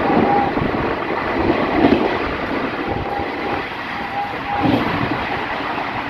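Indian Railways ICF passenger coach running at speed, heard through its open doorway: a steady loud roar of wheels on rail and rushing air as it passes through a station without stopping.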